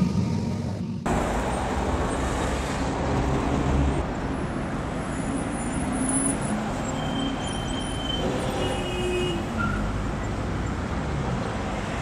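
Road traffic on a busy city street: a steady rush of passing cars' engines and tyres, starting abruptly about a second in after the end of low intro music.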